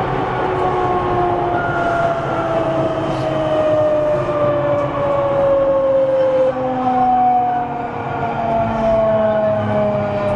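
Running sound inside a JR 207 series 1000-subseries electric train's motor car: the motor whine, several tones together, falls slowly and steadily in pitch as the train slows, over rumbling wheel and track noise.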